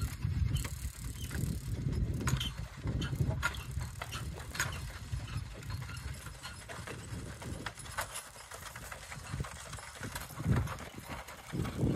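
Hooves of a two-horse team clopping on a gravel road as they pull a wooden-wheeled stagecoach past, with scattered clicks and rattles from the harness and wagon. A low rumble fades over the first few seconds.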